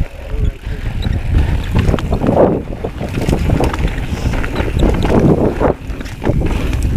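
Wind noise on the microphone over the rumble of a mountain bike rolling down a rough dirt trail, with many small clicks and knocks from the bike.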